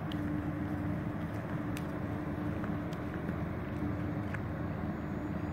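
Steady rushing drone of an electric ducted-fan RC jet in flight, with a steady hum underneath and a few faint ticks.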